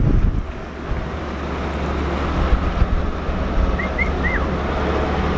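Narrowboat's diesel engine running steadily at tick over, a low hum. Wind buffets the microphone for the first second, and three short high chirps come about four seconds in.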